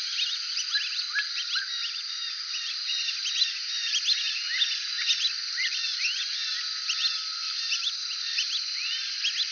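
Brazilian teal calling: many short high whistles that rise and fall, overlapping continually, over a steady high tone.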